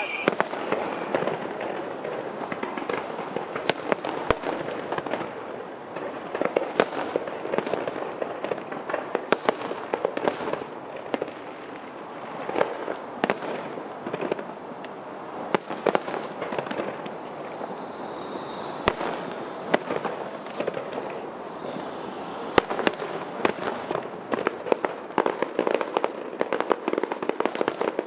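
Aerial fireworks display: a continuous crackle of bursting shells with frequent sharp bangs, often several in quick succession.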